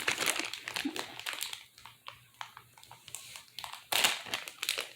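Plastic packaging crinkling and crackling as it is handled and searched for an opening, thinning out in the middle and loudest about four seconds in.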